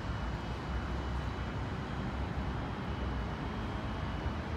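Steady low rumble of distant city traffic and background noise, with a faint high steady hum above it.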